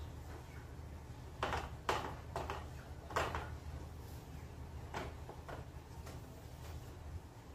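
A series of irregular hard knocks and clatters as small round fruits are picked up and dropped into the plastic bed of a toy dump truck on a concrete floor, over a steady low hum.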